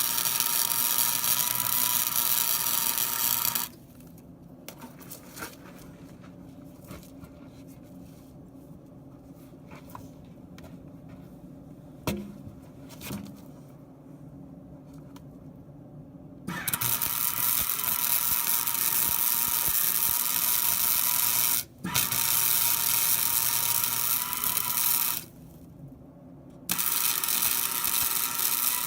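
Arc welding on steel chain hooks with a Hobart welder: a dense crackling sizzle with a faint steady whine. The arc runs for a few seconds, stops for about thirteen seconds with only a few light knocks, then runs again with two short breaks near the end.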